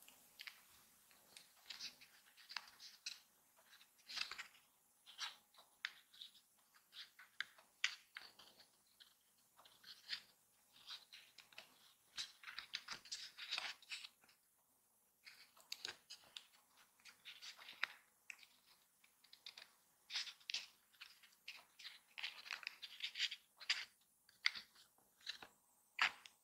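Thin card and paper pieces rustling, crinkling and clicking as hands handle them and fit them together: irregular, crisp handling noises, with a short pause about halfway through.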